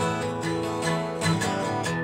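Acoustic guitar played solo: chords strummed, each left ringing before the next.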